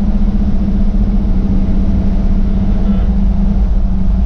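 Cammed Chevy C10 truck's engine and exhaust droning steadily at a constant cruising speed, heard from inside the cab as a loud, even low rumble.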